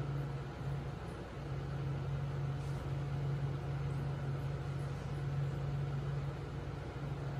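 Aquarium pump humming steadily, with a low, even drone over a soft hiss of moving water.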